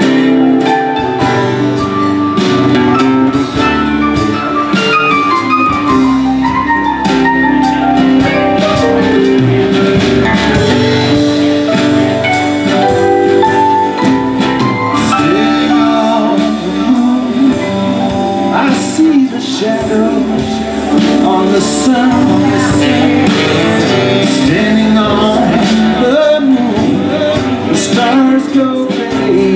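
A live band playing an instrumental passage loud and without a break, with saxophone, keyboard, acoustic guitar, electric bass and drums. Runs of notes step down in pitch several times.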